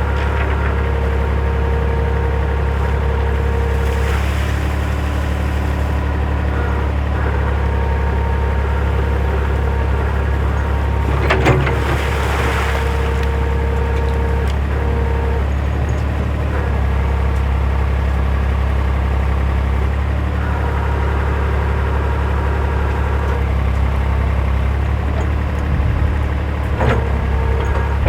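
Backhoe engine running steadily at a constant speed, with a whining tone that comes and goes above it and a short rush of noise about eleven seconds in.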